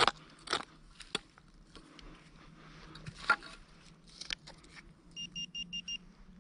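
Small hand pick striking into soil several times, then a metal-detecting pinpointer beeping rapidly in short, evenly spaced high beeps about five seconds in. The beeping signals a metal target close to the probe tip.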